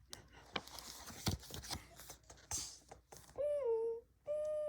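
Paper rustling and handling noises as a book is held and its pages turned, with scattered light taps. Near the end a child's voice makes two drawn-out sung notes, the first dipping slightly in pitch and the second held steady.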